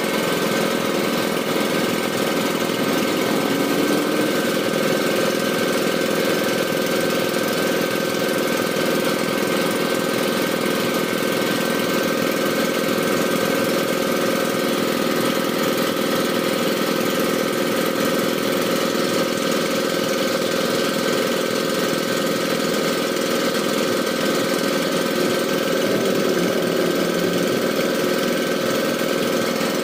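Small engine of borehole-drilling equipment running steadily at a constant speed, a continuous hum of several steady tones.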